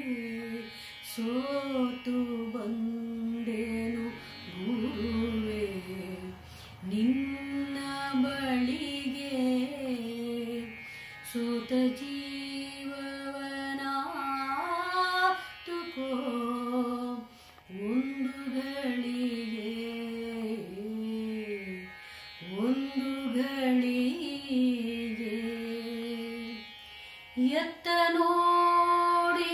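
A woman singing solo, holding long notes joined by ornamented slides in pitch, with short breaks between phrases. About two seconds before the end she moves up to a higher, louder phrase.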